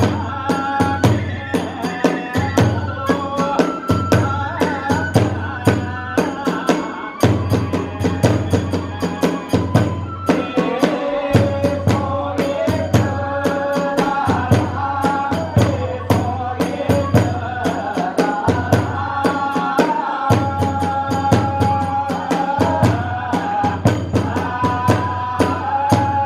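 Kagura hayashi ensemble playing: a bamboo flute carrying a wavering melody over fast, steady drum beats and the constant clash of small hand cymbals.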